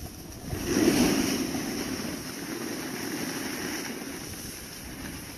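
Steady rushing hiss of sliding down a groomed slope over packed snow, with wind buffeting the microphone. It swells about half a second in and then holds, easing slightly.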